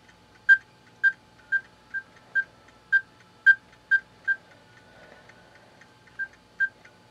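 Satu Brown wireless doorbell receiver beeping as its buttons are pressed: about a dozen short, high beeps of one pitch, roughly two a second, changing in loudness from beep to beep as the volume level is stepped. There is a pause of over a second near the end.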